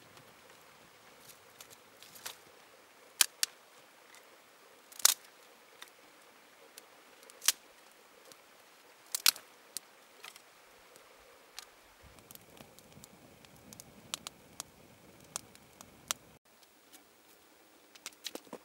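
Small fire of dry twigs and sticks crackling, with scattered sharp pops, a few of them loud, as more sticks are laid onto it.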